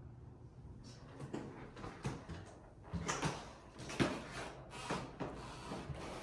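Irregular soft knocks and rustles of an interior door being pushed open and passed through, with footsteps; the strongest knocks come about three and four seconds in.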